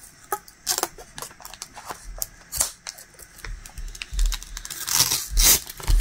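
Protective plastic backing film being peeled off a clear diamond-painting ornament, crackling and crinkling in irregular clicks. The clicks are sparse at first and grow louder and denser near the end.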